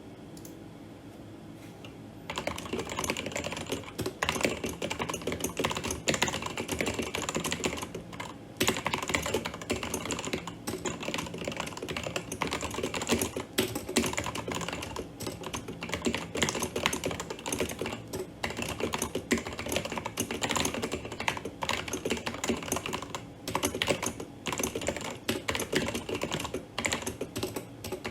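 Fast, continuous typing on a Cooler Master CK530 V2 mechanical keyboard with Revelation keycaps: a dense run of key clacks that starts about two seconds in, with a brief pause about a third of the way through.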